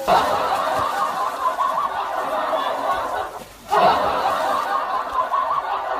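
A crowd laughing: dense, continuous laughter that drops out briefly a little past halfway, then comes back.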